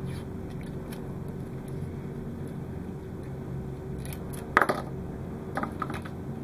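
Small wired LED and resistor parts and tools being handled on a workbench: light clicks and taps, with one sharp louder click about four and a half seconds in and a few small ticks after it, over a steady low room hum.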